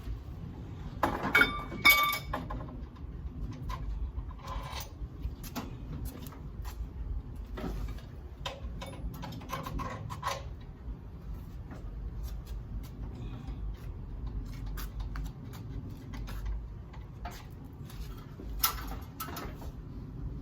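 Metal tools clinking and clanking against metal during engine work, in scattered knocks with a loud ringing clang about a second in and another near the end, over a low steady rumble.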